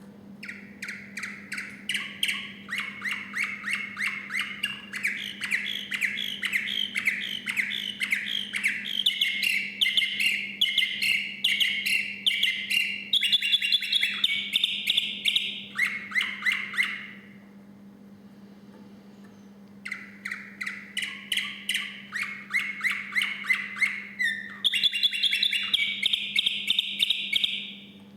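Canary singing: long runs of rapid repeated notes, the note shape changing from one run to the next. The song stops for a couple of seconds after about 17 s, then starts again and ends near the end. A steady low hum lies underneath.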